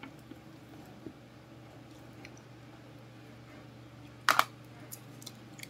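Longan being picked and its thin, brittle shell cracked open: a few faint clicks, then a short, sharp crackle about four seconds in, over a steady low hum.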